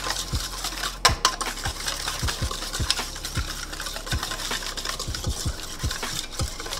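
A wire whisk beating a thin olive-oil and herb mixture in a stainless steel bowl, the wires clicking and scraping against the metal in quick strokes of about three a second, with a couple of louder clinks about a second in.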